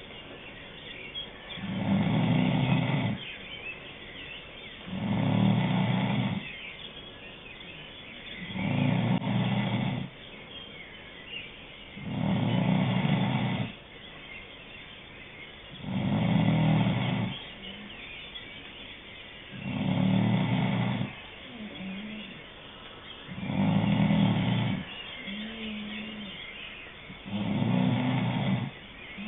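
Snoring in a steady rhythm, about one snore every four seconds, each lasting over a second, with softer breathing sounds between them. After several of the later snores a short, steady humming tone follows.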